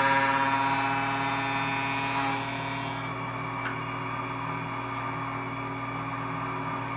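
Woodworking shaper running with a coping router bit as it finishes the cope cut across the end of a cabinet-door rail. The louder cutting noise tapers off over the first two or three seconds, leaving the machine running steadily with no load.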